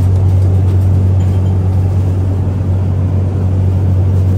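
Steady, loud engine drone of a small plane in flight, heard inside the cabin, with one strong low hum that holds the same pitch throughout.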